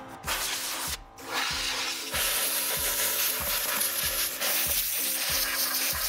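Compressed air from an air-compressor blow gun hissing steadily as it blows loose dirt off a furnace blower wheel, starting about a second in and growing stronger a second later. Background music with a steady beat runs underneath.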